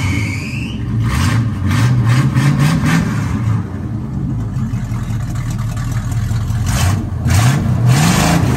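1975 Chevrolet K10 pickup's engine running with no mufflers, open pipes cut off right behind the cab. It is revved several times in the first three seconds, the pitch climbing with each rev, settles to a steadier idle, then is revved once more near the end.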